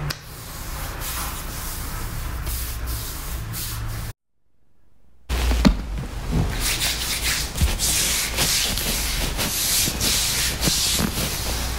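Hands rubbing and kneading an oiled shin and ankle, a soft skin-on-skin swishing. It breaks off for about a second some four seconds in, then returns as louder, quicker strokes.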